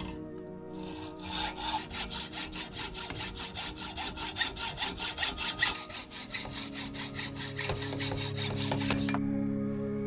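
Hand hacksaw cutting through a tube clamped in a slotted saw guide, in quick, even back-and-forth strokes that start about a second in and stop abruptly near the end.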